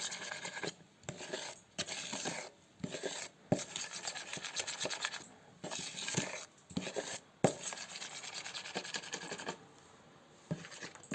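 A spoon stirring and scraping thick chocolate frosting around a bowl, in bouts with short pauses, with a couple of sharp knocks of the spoon against the bowl.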